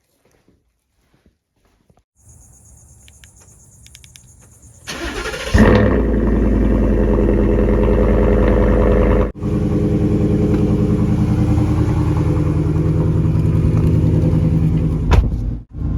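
A vehicle engine, the Ford F-150's 5.0 V8, cranks and starts about five seconds in, after a faint high whine. It then runs steadily at idle, and the sound drops out briefly twice.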